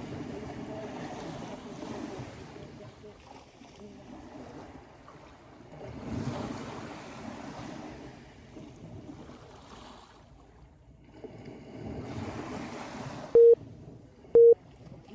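Sea waves breaking and washing up the shore, a surge of surf about every six seconds. Near the end come two short, loud beeps a second apart, a workout interval timer counting down to the end of an interval.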